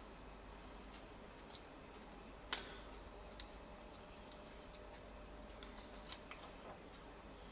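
A few faint, sharp clicks and taps from hand soldering on a small circuit board: the iron tip, solder wire and fingers working a push switch into place, the loudest click about two and a half seconds in and two more close together near six seconds. A low steady hum runs underneath.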